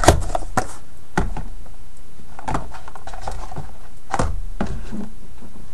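Handling noise from a cardboard diecast-model box: a handful of light knocks and scuffs spread over a few seconds as the box is moved about and set down on a desk.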